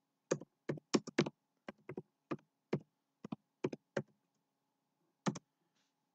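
Keys being typed on a keyboard: about a dozen sharp, irregular taps over four seconds, then two more near the end.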